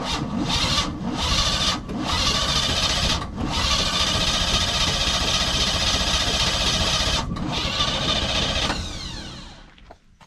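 GM starter motor cranking an engine with a whirring whine: several short bursts in the first few seconds, then one long crank of about five seconds. It then spins down with a falling pitch.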